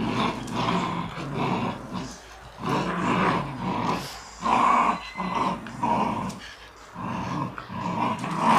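Shiba Inus growling in play while tugging on a rope, in repeated rough bursts with short pauses between them.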